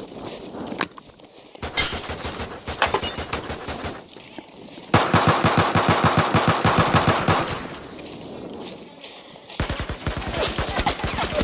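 Bursts of automatic gunfire: a burst about two seconds in, a long rapid burst of roughly ten rounds a second from about five seconds in, lasting some two and a half seconds and loudest of all, and another burst near the end.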